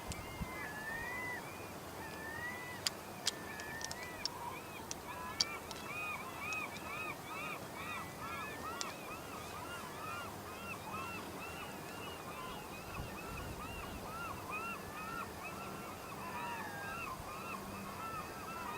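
A flock of birds calling steadily, many short rising-and-falling calls overlapping several times a second. A few sharp clicks come in the first six seconds.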